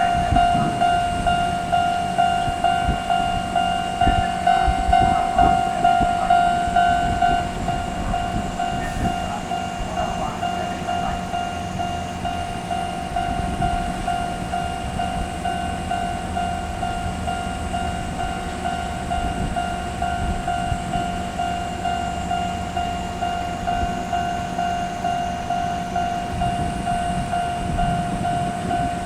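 A Japanese level-crossing alarm dings over and over on one steady pitch while a train rumbles and clatters over the crossing. The dinging is louder for the first several seconds, then goes on a little softer.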